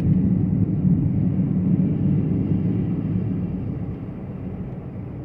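A car on a snowy road, heard from inside the cabin as a steady low rumble of engine and road noise that gradually grows quieter toward the end.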